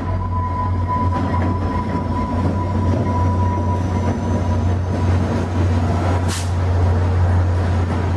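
HO scale model train running past on the layout track, with a steady low hum throughout and a faint rising whine. A short hiss comes about six seconds in.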